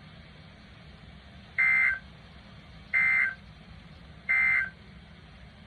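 NOAA Weather Radio SAME end-of-message data bursts: three short two-tone digital chirps, about 1.3 s apart, over a steady low radio hiss. They mark the end of the severe thunderstorm warning message.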